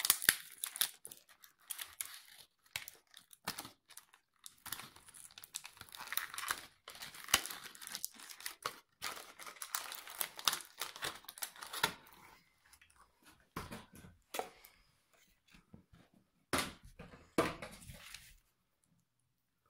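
White cardboard packaging insert rustling and scraping as it is handled and pulled open by hand, in irregular spells, stopping near the end.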